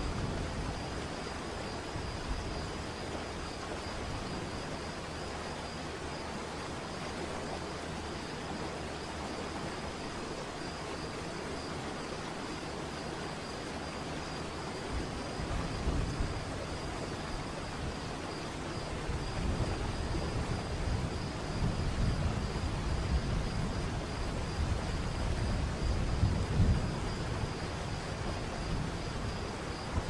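Waterfall roar: a steady rush of falling water, with a deeper rumble that swells in and out from about halfway through.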